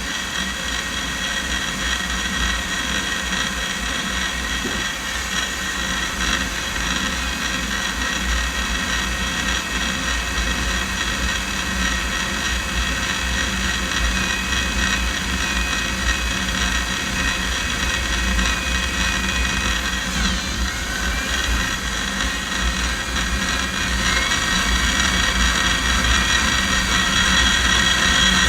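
Electric drill running steadily at low speed, a metal-cutting bit boring slowly into slate; the sound grows a little louder near the end.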